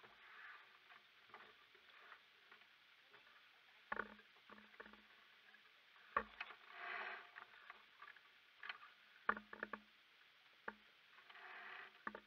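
Water swishing and slapping against the hull of a sailboat under way, in a few swelling surges, with occasional sharp knocks from the boat.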